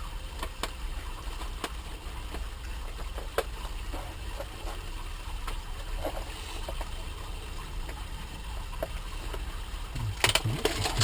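Small scattered clicks and rattles of a plastic heat-shrink tubing storage case being handled, with a cluster of louder clatter near the end, over a steady low hum.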